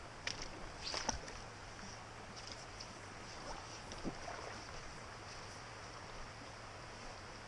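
Quiet creekside ambience: a faint steady rush of flowing creek water, with a few light clicks and knocks near the start and again about four seconds in.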